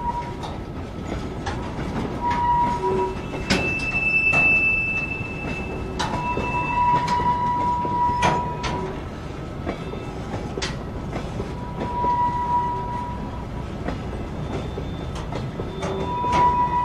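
Freight train of tank wagons rolling past, its wheels knocking irregularly over the rail joints, with short high metallic squeals coming and going several times.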